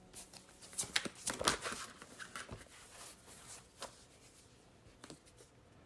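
Tarot cards being shuffled and handled: a quick run of papery flicks and snaps in the first couple of seconds, thinning to a few soft clicks later.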